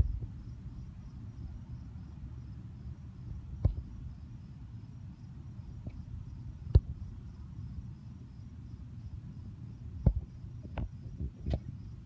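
Faint, steady, evenly pulsing chirping of crickets over a low rumble. Several sharp knocks are scattered through it, the loudest a little past halfway.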